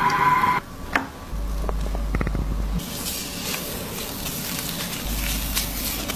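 Handheld shower head spraying water onto wet hair, stopping suddenly about half a second in. After a few light clicks comes a soft, crackly hiss of wet, lathered hair being squeezed and rubbed between fingers.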